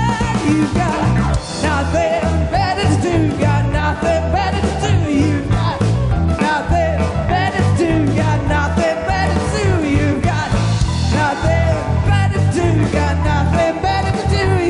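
Live band playing a rock song: a bending melodic lead line over steady bass and drums.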